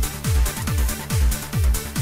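Electronic trance music: a pounding kick drum on every beat, about two a second, with hi-hats ticking between the kicks over steady low synth tones.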